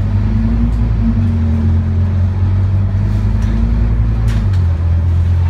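Scania OmniCity bus's engine heard from inside the passenger saloon while the bus is under way, a loud low drone. Its note climbs slowly and then drops away about four seconds in.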